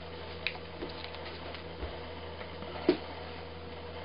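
Scattered clicks and handling knocks, with one sharp knock about three seconds in, over a steady low electrical hum.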